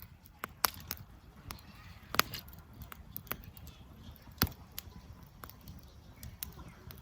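Campfire crackling: irregular sharp pops and snaps over a faint low rumble, the loudest snaps about two seconds and four and a half seconds in.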